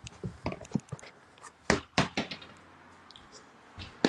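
A series of light knocks and clicks, like handling noise: several in the first two seconds, the two loudest close together just before the middle, and another knock near the end.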